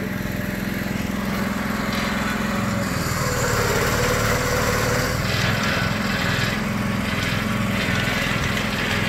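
Small engine powering a mini monkey hoist, running steadily; its note grows a little louder and busier about two to three seconds in as the hoist is worked.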